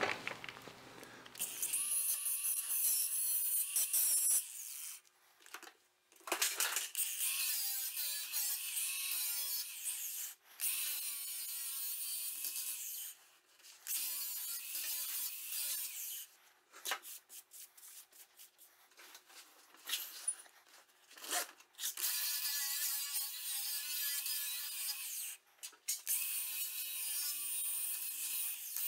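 Angle grinder grinding along the sawn edge of a steel plate in repeated passes. The harsh grinding noise comes and goes, with the motor's steady whine left in the short gaps between passes.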